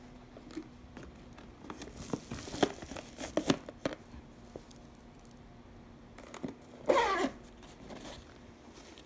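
Rustling and crinkling of an insulated lunch bag's woven foil lining as a lunchbox is handled inside it, with small clicks and knocks. About seven seconds in comes one quick rasp of the bag's zipper being pulled shut. A faint steady hum sits underneath.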